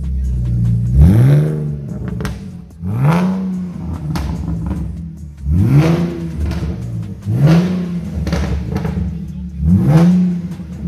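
BMW Z4 engine blipped repeatedly from idle through a straight-through exhaust with catless headers, the stock mid-pipe and a rear suppressor in place of the muffler. About five sharp revs come roughly every two seconds, each rising quickly and dropping back to a steady idle.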